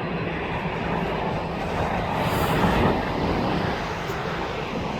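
Steady roar of an Airbus A330's jet engines at takeoff power, heard from beside the airfield, swelling slightly about two seconds in.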